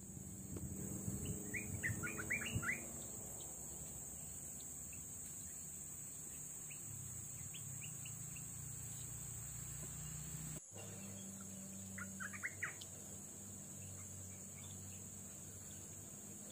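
Small birds chirping in two brief flurries of quick chirps, one about a second and a half in and another about twelve seconds in, over a steady high-pitched hiss.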